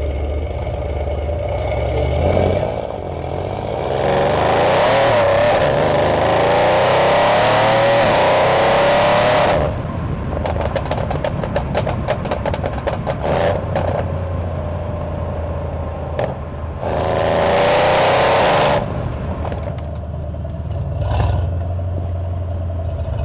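Mercedes-AMG C63 S's twin-turbo 4.0-litre V8, running catless downpipes and tuned to over 600 wheel horsepower, idling and being revved. A short blip comes first, then a long rev held for about five seconds that cuts off into a run of crackles and pops as it falls back to idle. A second rev follows about three quarters of the way in, and there is a small blip near the end.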